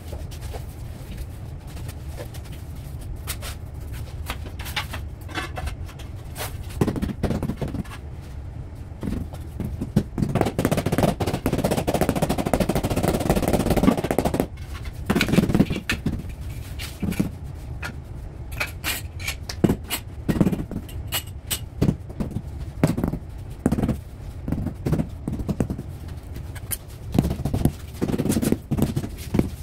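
Floor-tiling work with hand tools on tile and cement mortar: scattered knocks and taps, with about four seconds of scraping around ten seconds in.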